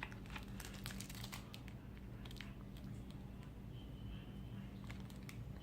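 Packaging from a USB Wi-Fi adapter's box being handled: crinkling and rustling with scattered light clicks, busiest in the first second and a half, over a steady low hum.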